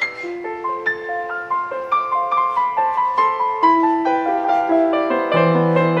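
Background piano music: a gentle melody of single held notes, with deeper bass notes joining about five seconds in.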